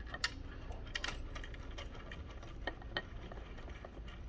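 Faint scattered metallic clicks and scrapes of a Phillips screwdriver turning a screw into the Juki DU-1181N sewing machine's casting to hold a needle-positioner bracket.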